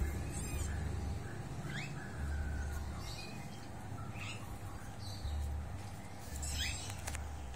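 Short, high rising chirps, about six of them spread over several seconds, over a low steady rumble.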